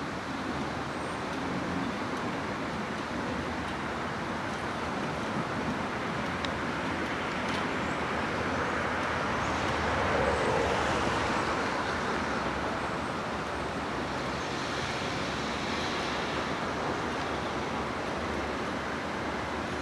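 PCC streetcar rolling along the track under steady traffic-like noise, growing louder about halfway through as it comes closest, then easing off.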